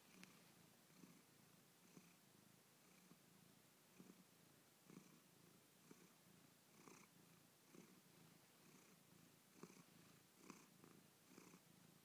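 Angora cat purring faintly, in soft pulses about once a second.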